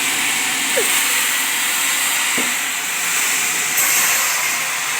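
Sawmill machinery processing sengon logs, running steadily with a high hissing noise and a faint knock about two and a half seconds in.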